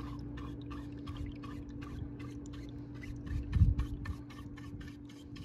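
Small brush sweeping wet gold concentrates across a plastic finishing tray under a thin flow of water: a quick, regular scrubbing about four strokes a second over a steady low hum. One dull thump comes about three and a half seconds in.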